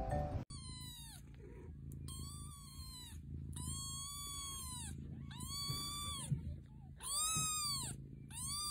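Newborn kitten mewing: six high, thin cries in a row, each rising and then falling in pitch.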